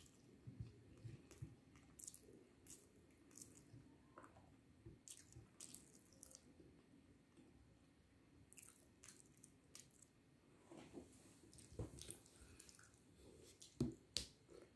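Quiet close-up eating sounds: chewing and soft wet mouth smacks, with small clicks of fingers scraping the last rice and curry off a plate. A couple of sharper clicks come near the end as a water glass is lifted to drink.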